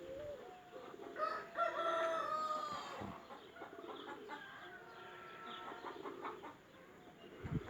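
A rooster crowing: one long crow starting about a second in, followed by fainter chicken calls.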